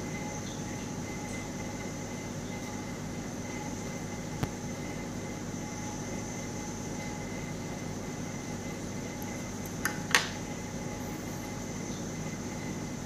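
A steady mechanical hum with a faint high whine, broken by a sharp click about four seconds in and a louder double click about ten seconds in.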